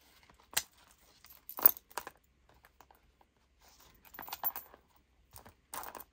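Desk handling sounds from a stuffed leather traveler's notebook with small metal charms: scattered clicks, light clinks and rustling, with one sharper knock about a second and a half in.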